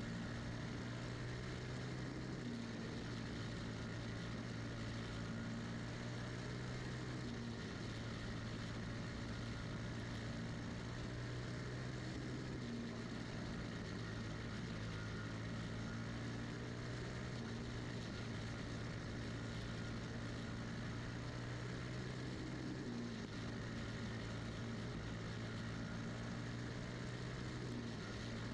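A champ kart's Animal-class single-cylinder racing engine running hard at race pace. Its pitch holds steady and shifts briefly about every five seconds, with wind and tyre noise under it.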